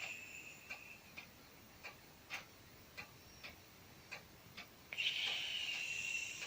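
Sleeping domestic cat snoring with a high whistle in its breath: one whistling breath fades out in the first second, and the next starts about five seconds in. Soft ticks about twice a second run underneath.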